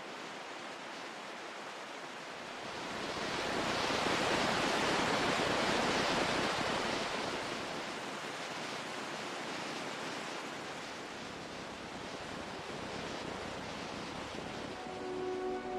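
Ocean surf: a wave breaks and washes in, swelling to its loudest a few seconds in, then easing back to a steady hiss of water. Soft music comes back in near the end.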